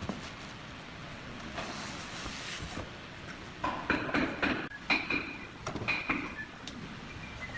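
A short scraping hiss, then a quick run of knocks and clicks with brief metallic rings, from carpentry and cabinet-fitting work.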